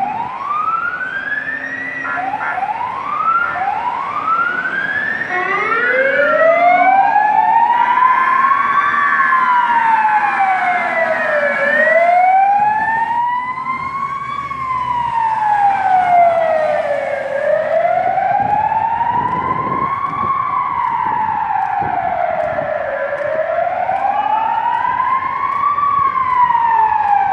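Fire engine siren wailing, rising and falling in pitch about once every six seconds. In the first few seconds it gives shorter, overlapping rising sweeps before settling into the slow wail.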